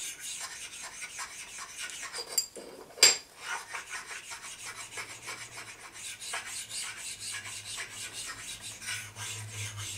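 Precision ground bench stone rubbed back and forth by hand over the cast-iron ways of an Atlas 10F lathe, a quick run of rasping strokes that knocks down dings and raised spots on the bed. A sharp click sounds about three seconds in.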